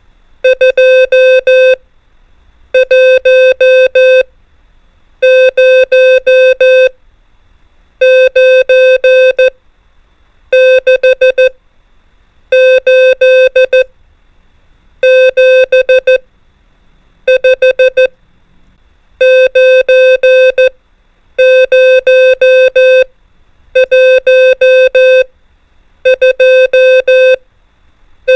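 Morse code numerals sent as a steady beeping tone, each burst of dots and dashes one five-element digit, about a dozen digits with short pauses between them.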